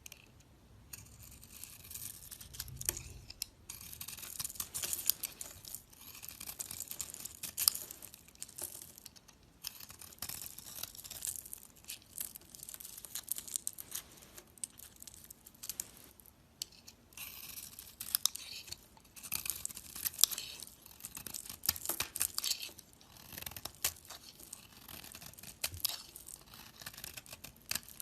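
Blade carving into a bar of soap: repeated crisp scraping and shaving strokes of a second or two each, full of fine crackles, with short pauses between them.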